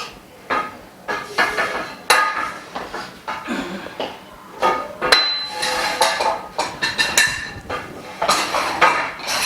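Frame bars and the assembly tool of a dust-free room clanking and clinking as the bars are fitted together and tightened: a quick irregular run of sharp knocks, some ringing briefly.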